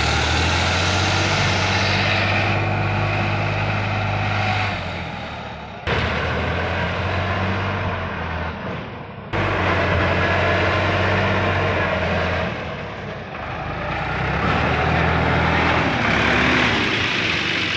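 Sonalika RX 50 DI tractor's diesel engine running steadily as the tractor creeps forward pulling a tipping trailer that spreads river sand. The engine sound breaks off abruptly twice and picks up again.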